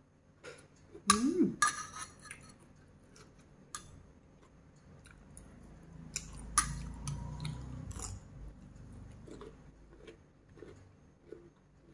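A person chewing and biting food close to a clip-on microphone: crisp crunchy bites about a second in, then wet chewing and mouth sounds, loudest around six and a half seconds in.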